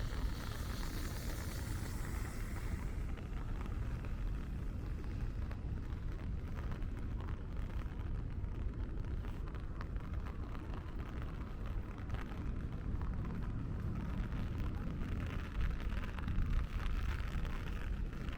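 Rainy city street: a steady low rumble of traffic, with tyre hiss from vehicles passing on the wet road near the start and again from about fifteen seconds in.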